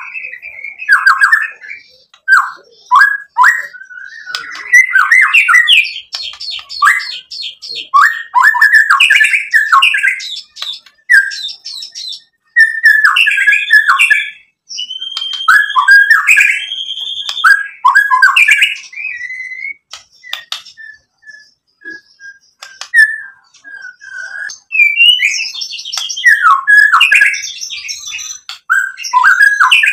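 White-rumped shama (murai batu) singing: bursts of varied whistled phrases and rapid chattering notes, broken by sharp clicks and short pauses, with a longer lull a little past the middle.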